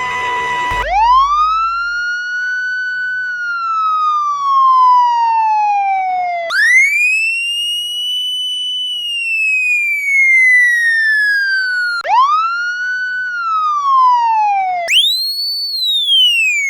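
Police siren sound effect played as a run of variations: each wail rises quickly and then falls slowly. The first two wails last about five seconds each; the ones near the end get shorter and higher. A brief steady beep comes just before the first wail.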